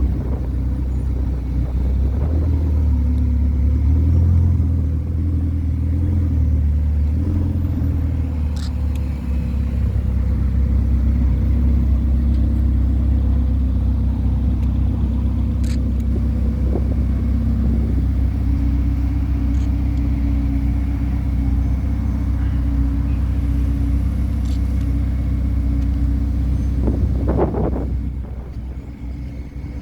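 Ferrari 488 Pista Piloti's twin-turbo V8 running steadily at idle with a low rumble. The note wavers a little in the first several seconds, and there is a brief noise near the end as the sound dips.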